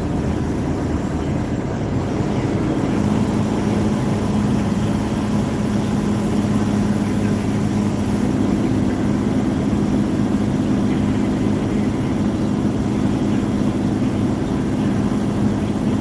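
Semi truck's engine and tyre noise heard inside the cab while cruising at highway speed: a steady drone with a low hum.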